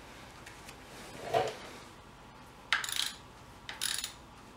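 A knock about a second in, then a ratchet wrench clicking in two short runs of quick strokes as it drives in the mounting bolt of a VTC sensor.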